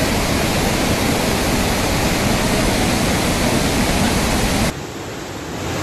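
Loud, steady rush of a river in flash flood after a cloudburst. The rush drops abruptly quieter about three-quarters of the way through, then builds again near the end.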